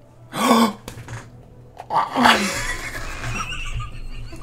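Two people bursting into laughter, with two loud short vocal outbursts about half a second and two seconds in, then continued laughing.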